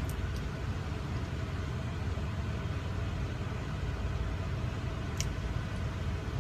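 Steady low rumble of a car heard from inside the cabin, with one faint click about five seconds in.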